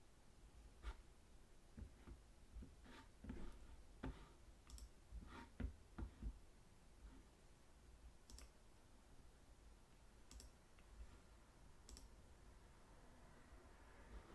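Faint, irregular clicking at a computer over quiet room tone, a dozen or so short clicks that thin out after about six seconds.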